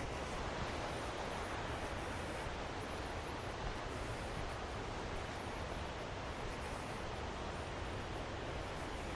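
Steady rush of a river's falls and rapids, an even noise with no breaks. Faint high chirps come and go over it.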